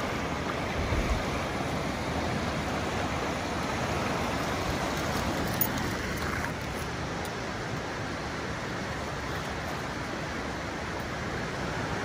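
Steady wash of water on a rocky shoreline: gentle surf and trickling water over rock. A brief low thump comes about a second in.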